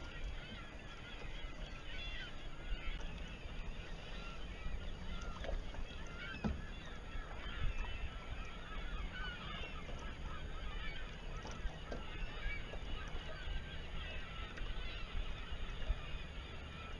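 Water gurgling and lapping along the hull of a Precision 18 sailboat under way, a constant stream of small bubbling chirps over a low wind rumble.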